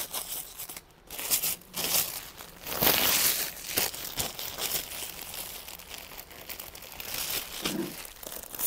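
Clear plastic wrapping on a roll of fabric crinkling and rustling as it is handled and pulled at, in irregular bursts, loudest about three seconds in.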